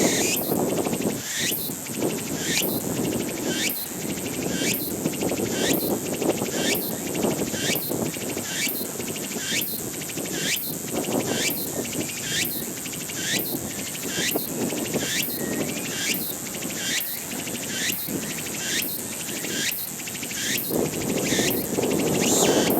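Tsukutsuku-boushi cicada (Meimuna opalifera) singing: a steady run of short, high repeated phrases, about three every two seconds.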